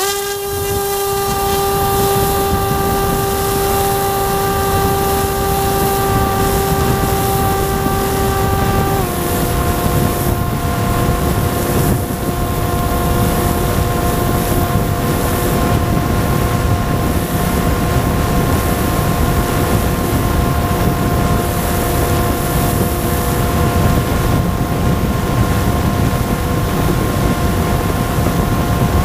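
Electric RC airplane's motor and propeller running at a steady high whine, heard from the plane's onboard camera over a rush of air noise. The pitch steps down slightly about nine seconds in.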